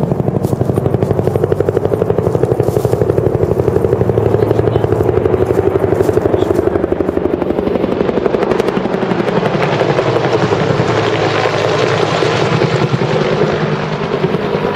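A loud, steady machine sound with a rapid, even pulse, like a helicopter's rotor beat, getting brighter in the second half.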